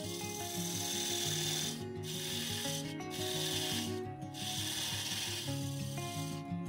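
Parting tool cutting into box elder spinning on a wood lathe: a steady rasping hiss of the cut that breaks off briefly a few times as the tool is eased off.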